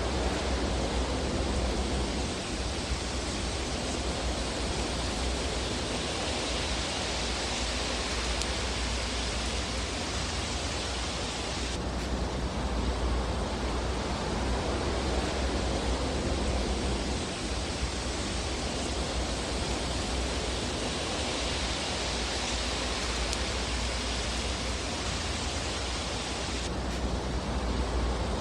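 Fireplace fire ambience: a steady rushing hiss over a low rumble, swelling and easing slowly, with hardly any separate crackles. The hiss changes abruptly about 12 seconds in and again near the end.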